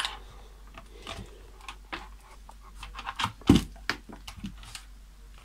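Handling noise as a light is taken down: irregular small clicks and knocks, with one louder thump about three and a half seconds in.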